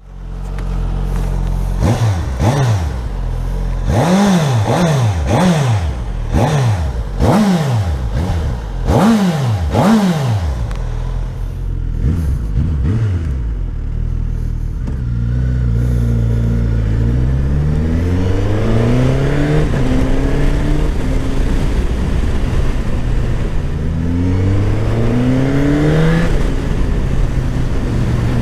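Suzuki GSX-S1000 GT's inline-four engine on its stock exhaust. It idles, then takes several quick throttle blips that rise and fall sharply, then pulls away with the pitch climbing steadily and dropping back at each gear change.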